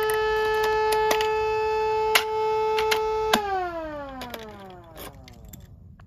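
Small 24-volt motor-driven siren sounding one steady, loud tone. Just over three seconds in its power is cut and the pitch falls smoothly as the rotor winds down, fading out. Several sharp clicks come from the pull station's key and reset.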